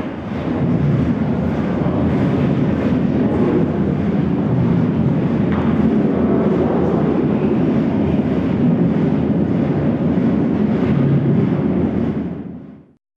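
A loud, steady rumble that fades out near the end.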